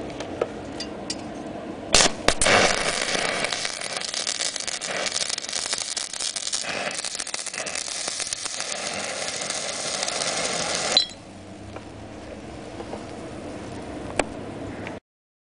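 Stick (MMA) welding arc from a Dedra DESI200 inverter welder, 3.25 mm electrode at 200 A on 3 mm steel angle: struck about two seconds in with a few sharp cracks, then a steady crackling sizzle that breaks off suddenly about eleven seconds in when the arc is stopped.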